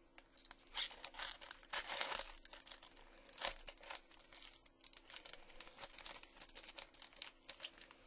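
Foil trading-card pack wrapper being torn open and crinkled, with loud crackling bursts in the first few seconds and lighter rustling after.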